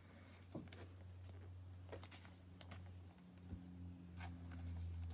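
Trading cards being handled and set down on a pile, giving a few faint light clicks and rustles over a steady low hum.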